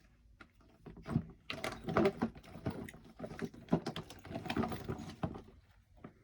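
Silicone pop-it fidget toys being stirred and rummaged in a bucket: a busy, irregular clatter of light knocks and rustles, several a second.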